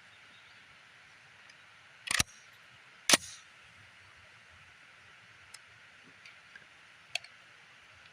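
Two sharp reports from a Universal M1 .30 Carbine reproduction firing about a second apart, the second louder with a short echoing tail. A few faint clicks follow.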